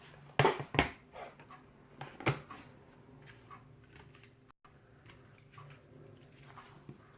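Metal clicks and knocks from a lock cylinder and picking tools being handled: two sharp knocks about half a second in, another a little after two seconds, then lighter scattered clicks. A faint steady hum runs underneath.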